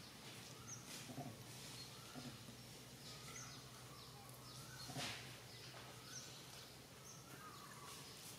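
Faint outdoor ambience under a low steady hum, with scattered short, faint chirping calls and a soft rustle about five seconds in.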